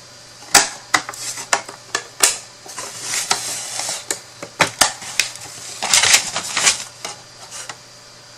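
Thin wooden pieces of a slot-together storage box clicking and knocking as they are handled and fitted together, with two longer stretches of scraping and sliding.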